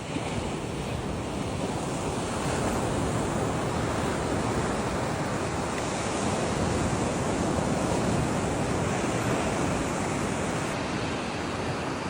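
Steady rushing noise of surf on a beach mixed with wind buffeting the microphone.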